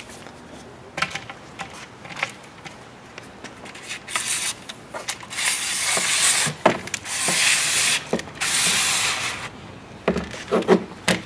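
Plastic rail being slid along the track of a direct-reading rod: a few light clicks, then about four long scraping rubs, and a few knocks near the end as it seats.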